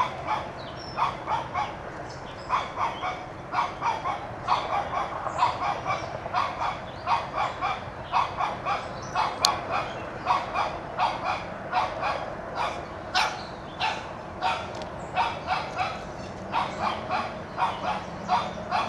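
Shih Tzu barking repeatedly in high-pitched yaps, about two a second in runs with brief pauses: a small dog barking to drive a whitetail deer out of its yard.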